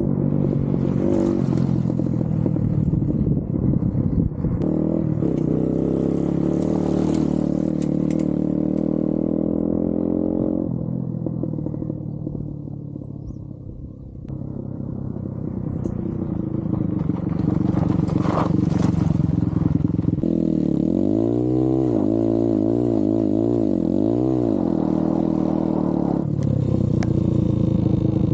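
TVS Apache RTR motorcycle engine running on a ride. It holds a steady pitch for the first part, then drops off and quietens. It climbs back, is revved up and down several times in quick succession, and then settles steady again.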